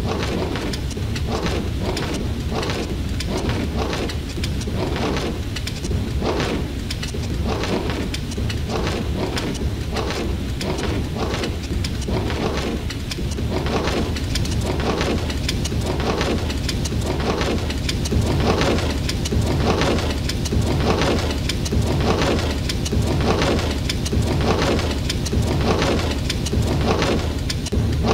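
Rain on a car windscreen and the sweep of the windshield wipers, heard from inside the car, with a steady low rumble of the car underneath. It is a snippet of about a second looped over and over, so the sound repeats in an even rhythm a little faster than once a second.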